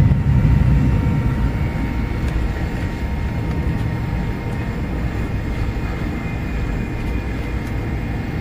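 Cabin noise inside a McDonnell Douglas MD-88 taxiing onto the runway: its rear-mounted Pratt & Whitney JT8D turbofans run at low power as a steady low rumble with a faint steady whine. The rumble is a little louder at first, then eases.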